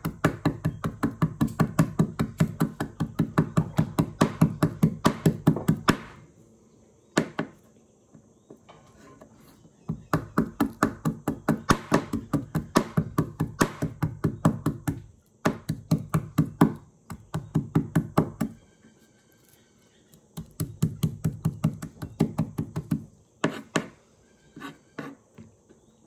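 Kitchen knife rapidly chopping garlic cloves on a plastic cutting board. It comes in several runs of quick, even strokes, several a second, with pauses of a few seconds between them and a few single chops near the end.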